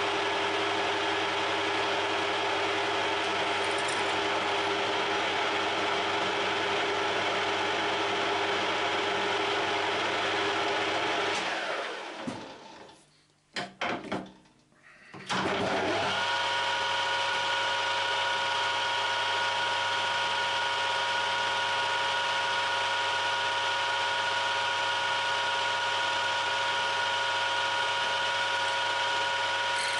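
Metal lathe running with a steady motor and gear whine. It spins down and stops about twelve seconds in, a few clicks follow in the short quiet, and it starts again a few seconds later, settling back to the same steady running.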